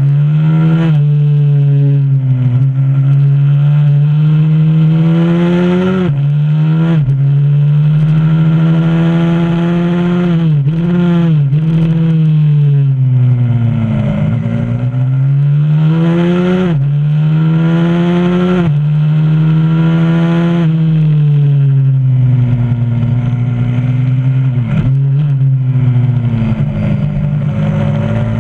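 125cc supermoto pit bike engine recorded onboard at race pace: it revs up through the gears with a sharp drop in pitch at each shift. At a few points the revs fall away for longer as the bike slows for corners, then climb again.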